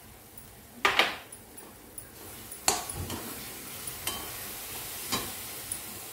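A perforated metal spatula clanks and scrapes against a metal kadhai while stirring a coconut and jaggery filling. The loudest clank comes about a second in, with others at intervals, over a low sizzle of the filling cooking.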